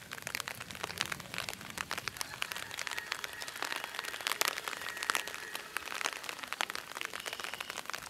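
Irregular patter of raindrops tapping on an umbrella, a quick scatter of small clicks over a light hiss.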